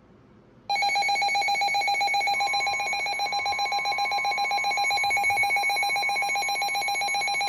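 Weather radio receiver's electronic alert alarm trilling rapidly, starting about a second in. Partway through, the steady 1050 Hz NOAA Weather Radio warning alarm tone joins it, the tone that signals an incoming warning broadcast.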